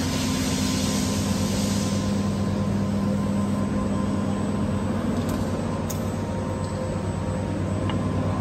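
Steady machine hum in a CNC router workshop, with several held low tones under an even noise.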